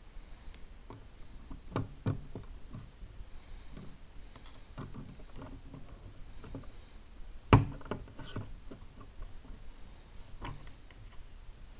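Lego Technic plastic parts being handled and pressed together on a tabletop: scattered light clicks and knocks, the loudest about seven and a half seconds in.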